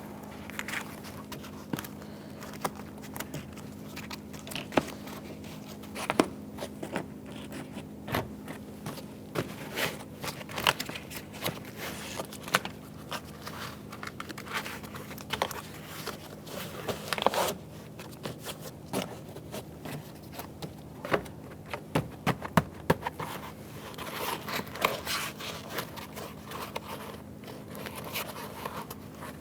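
Plastic door vapour-barrier membrane being handled and pressed back onto the inner door: irregular crinkling, scraping and light taps, over a steady low hum.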